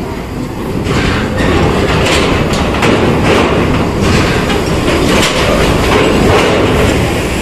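Long-distance bus rolling over a ferry's steel loading ramp, its wheels setting the ramp plates clanking and rattling over a low engine rumble. The clanks start about a second in and come thick and irregular.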